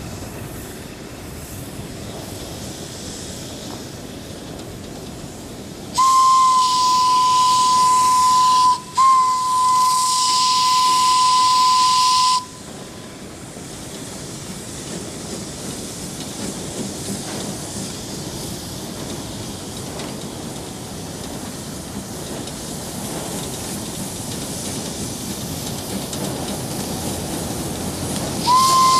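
Steam whistle of an Orenstein & Koppel narrow-gauge steam locomotive, sounding a single steady note with hissing steam. It is blown about six seconds in, breaks off briefly, then is held for about three seconds more, and a third blast starts right at the end. Under it, the running noise of the approaching train slowly grows louder.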